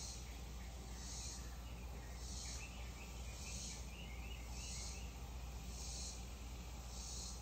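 Insects calling outdoors in a regular pulsing trill, one high burst about every second, over a steady low rumble of outdoor background noise. A quick series of bird chirps comes in the middle.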